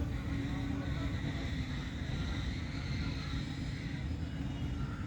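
Steady low rumble of heavy machinery or an engine running, with a constant hum.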